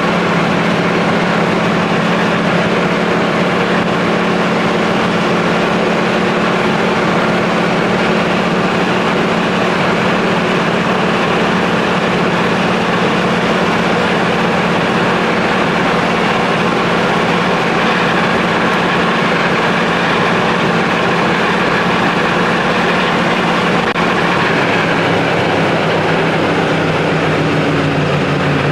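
Camaro Z28's stock V8 held at high rpm near top speed, heard from inside the cabin as a steady drone under loud wind and road noise. A few seconds before the end the engine note drops.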